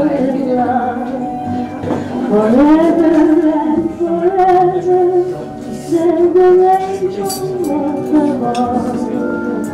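A woman singing a song with orchestral accompaniment in long held notes. It is an old 1930s film soundtrack played back over loudspeakers into a room.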